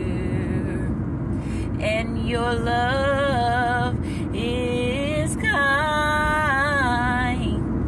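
A woman singing a slow worship melody with no clear words, two phrases with long held notes, over a steady low rumble like car cabin noise.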